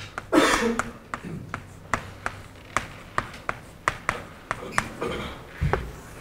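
Chalk writing on a blackboard: sharp taps and clicks of the chalk striking the board, about three a second. A short vocal sound comes just after the start and is the loudest thing.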